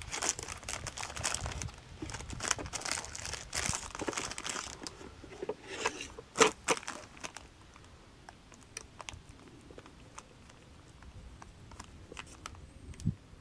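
Plastic wrapper of a banana loaf crinkling and tearing as it is opened and the loaf is pulled out, with one sharp knock about six seconds in. Then it goes quieter, with small clicks and a light knock as a knife slices the loaf on a wooden board.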